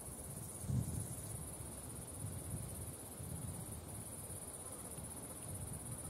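Crickets trilling in a continuous high, steady buzz that breaks off briefly once or twice. Under it runs a low rumble, with a dull thump just under a second in.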